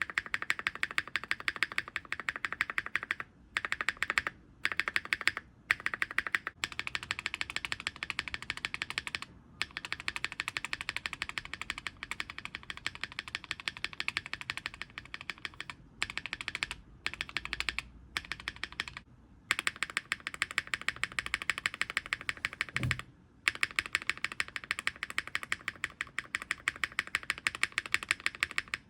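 A mechanical keyboard spacebar pressed and released rapidly and repeatedly, with short pauses. Three lubed switches are heard in turn under the spacebar: a BSUN Raw linear, then a Sarokeys X BSUN BCP that rattles because it sits loose in the plate, then an HMX Cloud, which has some extra noise from its lubed top-out parts.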